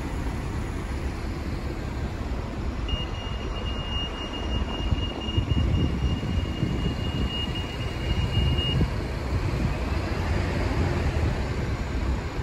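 City street traffic noise, a steady low rumble with wind on the microphone. About three seconds in, a thin, steady high-pitched tone sounds for about six seconds and then stops.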